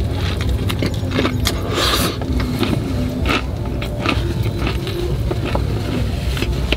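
Close-up chewing of a mouthful of crispy fried chicken burger: irregular crunches and wet mouth clicks, over a steady low hum.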